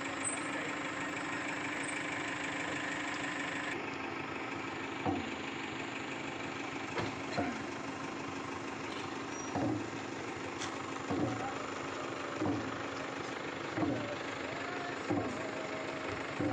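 Vehicle engine idling steadily. From about five seconds in, short sounds recur roughly every second and a half over the hum.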